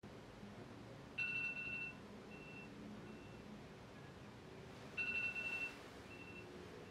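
Electronic alarm beeping: one high beep of under a second followed by two fainter short ones, the pattern repeating about every four seconds.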